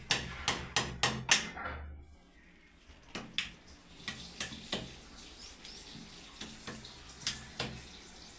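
Hammer driving small nails through a flex sheet into a wall: a quick run of sharp strikes, about three a second, for the first second and a half, then a pause and a few more scattered strikes, fainter toward the end.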